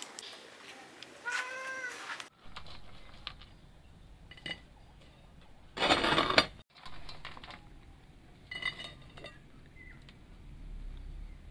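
A few short arching animal calls, with a loud, brief clatter of dishes about six seconds in.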